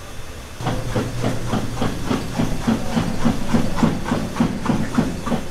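A machine running with a fast, even chugging of about five pulses a second over a hiss, starting about half a second in.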